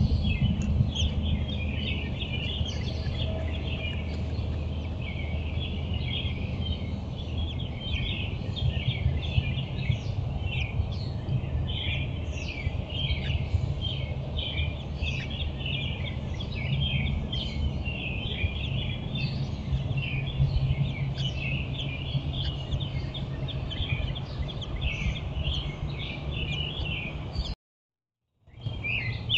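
Many wild birds chirping and singing together in a dense, unbroken dawn chorus, over a steady low hum. The sound drops out for about a second near the end, then the chorus resumes.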